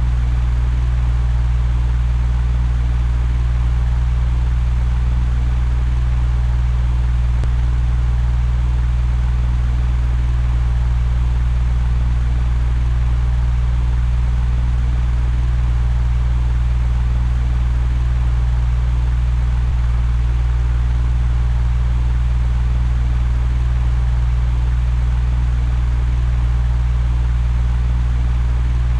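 Electric fan running steadily: a constant low hum with an even rush of moving air.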